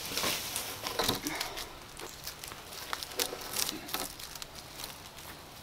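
Dry leaf litter and sticks rustling and crackling, with irregular light snaps and knocks as wooden shelter poles are handled and shifted.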